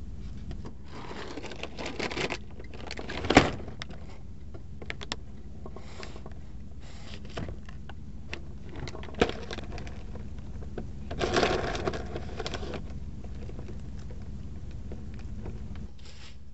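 Food-prep handling sounds: a plastic crouton bag rustling and croutons being put onto a tuna sandwich on a paper plate. Scattered clicks run through it, with one sharp knock about three seconds in, over a low steady hum.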